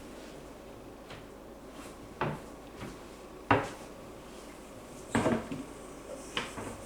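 Kitchen cupboard being rummaged through in search of a container lid: a handful of sharp knocks and clatters, the loudest about three and a half seconds in, with a quick cluster a little after five seconds.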